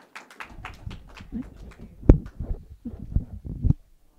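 Applause tapering off over the first second or so, then a run of dull low thumps and knocks, the loudest about two seconds in, with two more strong ones near the end.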